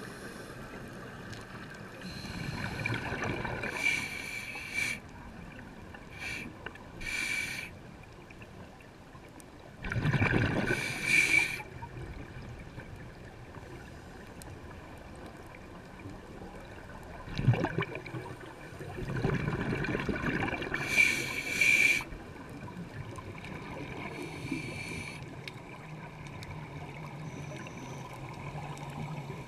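Underwater sound of a scuba diver's breathing: bursts of exhaled bubbles from the regulator, each one to three seconds long and a few seconds apart, over a steady low hiss.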